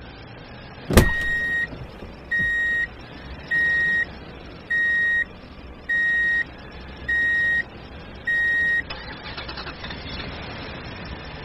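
Truck reversing-alarm sound effect: a sharp click, then seven steady high beeps, each about half a second long, about one a second, stopping a little past two-thirds of the way through.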